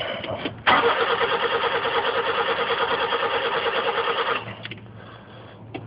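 Car starter motor cranking the engine with a fast, even pulsing beat, in a brief burst and then a longer crank of about three and a half seconds. It then stops, leaving a low steady hum.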